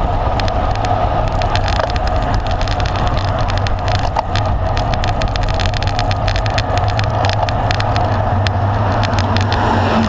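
Steady wind and road noise on a bike-mounted camera's microphone while riding a road bike at speed, crossed by many small clicks and knocks from the mount over the road surface.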